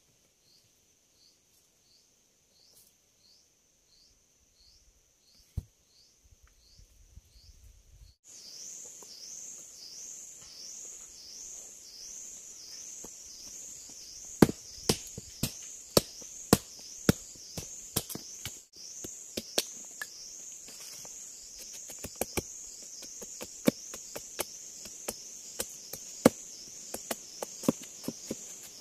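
An insect calls in a steady rhythm of about two high chirps a second, faint at first and much louder from about eight seconds in. From about halfway there are irregular sharp knocks of a machete striking wood as a stick is chopped and whittled.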